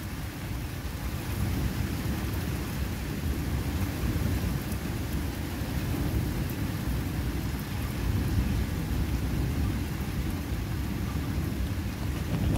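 Thunderstorm: a continuous low rumble of thunder that swells and eases a little, over a steady hiss of rain.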